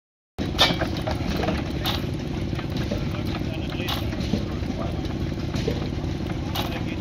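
Vintage horizontal single-cylinder stationary engine with heavy flywheels running and driving a flat belt: a steady low mechanical rumble, with a sharp exhaust bang every one to two seconds.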